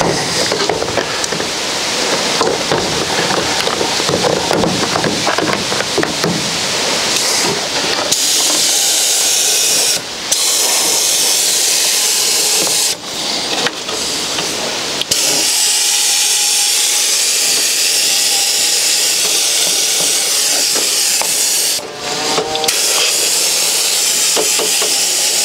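Compressed-air paint spray gun hissing as it sprays epoxy primer, in long passes with the trigger let off briefly about four times. The hiss grows steadier and louder about a third of the way in.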